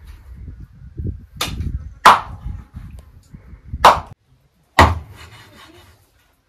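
Chopping: four sharp blows, three of them loud and about a second apart in the middle of the stretch, with low rustling handling noise between them.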